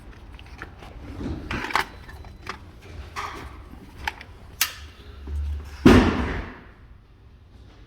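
Light clicks and knocks from handling a car door latch and the parts around it, with one loud clunk about six seconds in.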